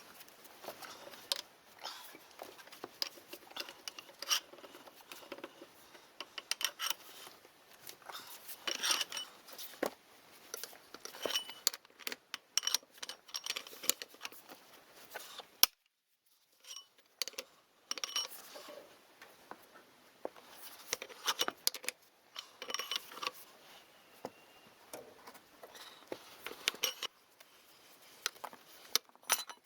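Hand tools and steel parts clinking and tapping irregularly, with a short silent gap about halfway through.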